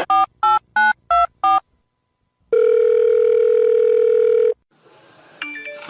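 Telephone touch-tone keypad: five quick dual-tone beeps as a number is dialled, then one steady ringback tone lasting about two seconds as the call rings through.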